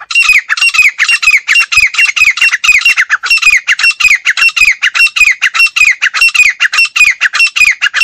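Female grey francolin calling: a loud, unbroken run of short notes, about five a second, each falling in pitch.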